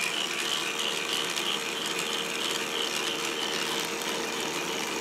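K'NEX electric motor driving the plastic gears of an inverted-helix ball lift, running steadily: a continuous whir with a fast, even clatter of gear teeth, the blue gear spinning pretty fast.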